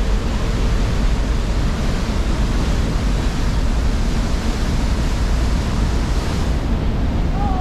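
Strong wind blowing over the microphone on an open ferry deck: a steady, dense rush, heaviest in the low end.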